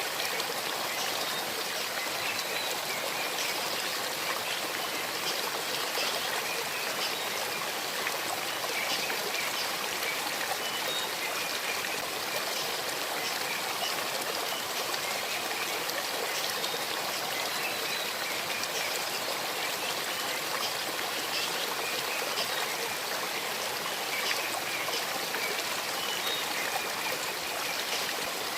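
Shallow stream babbling steadily over stones, with small trickles and splashes standing out now and then.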